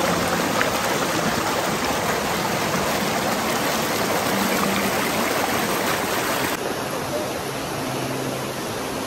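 Shallow river water rushing and splashing over rocks close to the microphone, a steady rush that eases a little about six and a half seconds in.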